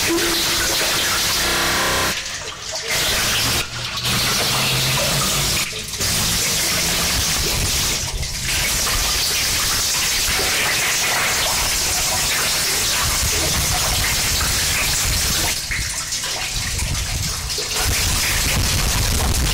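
Harsh noise performance: a loud, dense wall of distorted electronic static that cuts out for split seconds several times in the first half.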